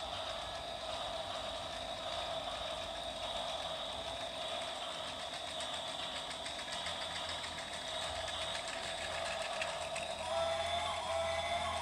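Toy train's small motor and gears running: a steady whirr with a fast, even ticking. Several pitched tones join in near the end.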